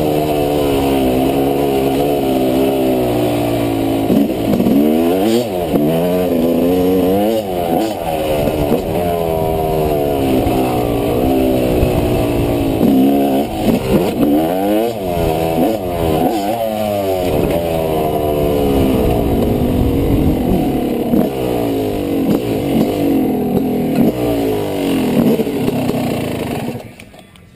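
Small engine of an off-road vehicle running hard and revving up and down over and over on a dirt track, then shutting off suddenly near the end.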